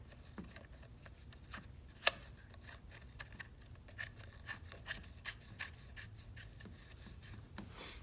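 Small clicks and scrapes of a nut being threaded on by hand onto the axle of a Husqvarna lawn mower's rear wheel, with one sharper click about two seconds in.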